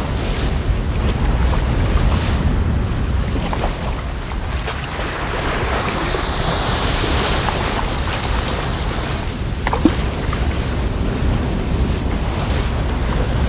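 Whitewater rapids rushing and splashing around a kayak, heard on a helmet-mounted GoPro's microphone with a heavy rumble of wind buffeting. A louder hiss of spray swells midway, and a single sharp knock comes about three-quarters of the way through.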